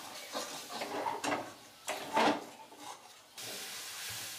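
A metal spatula scraping and stirring a thick spice paste around a kadai in a series of irregular strokes, the loudest about two seconds in. The masala is being fried down (bhuna) with a splash of water.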